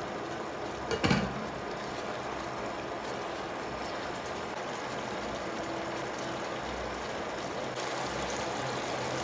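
Chicken wings bubbling and sizzling in a thin sauce in an uncovered frying pan as the sauce cooks down, a steady sound throughout. About a second in there is a single sharp knock, the loudest moment.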